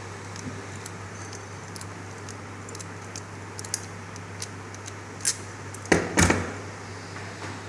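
Small metallic clicks and clacks of an RJ45 crimping tool being squeezed and turned on a network cable, cutting through the outer jacket, with a louder cluster of clacks about six seconds in.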